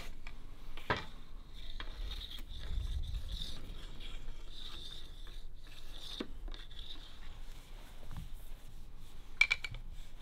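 Solid bamboo rod rubbing and scraping against a notched wooden bending tool as it is worked by hand over a heater, with a few sharp wooden knocks, the loudest near the end.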